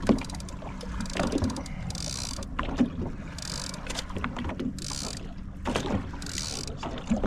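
Knocks, clicks and rattles of gear being handled in a fishing boat. A short hiss comes back about every one and a half seconds.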